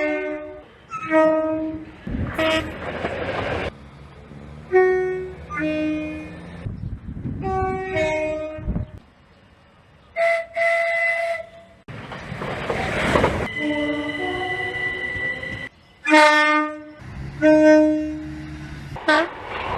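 Short horn blasts from a series of different British trains, cut together one after another, many of them two-tone, sounding a high note then a low one. Between the blasts comes the rush and rumble of trains running past.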